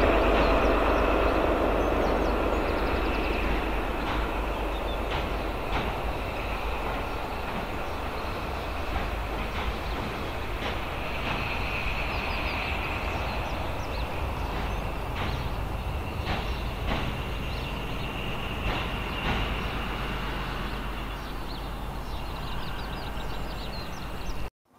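High Speed Train with diesel power cars running away into the distance, its engine and wheel noise fading over the first several seconds and then carrying on as a steady faint rumble.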